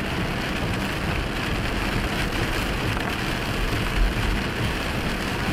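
Rain on a moving car and tyres hissing on the wet road, a steady noise heard from inside the cabin. A low thump about four seconds in.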